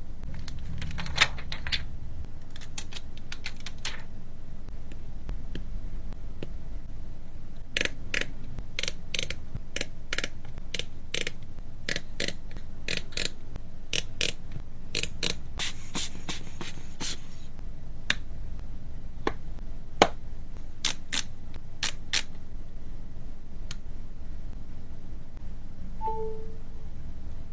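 Small sharp clicks and taps of tools and parts on an iPhone 11 Pro being worked on, coming in irregular clusters over a steady low hum. A brief faint tone sounds near the end.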